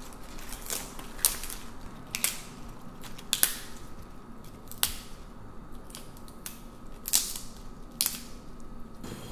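Bok choy leaves being snapped off the head by hand: about seven crisp, sharp cracks of the fresh stalks breaking, at irregular intervals.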